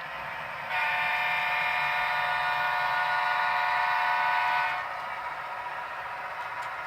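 A train horn sounds one long chord of several steady notes, starting about a second in and cutting off about four seconds later, over a steady rushing noise.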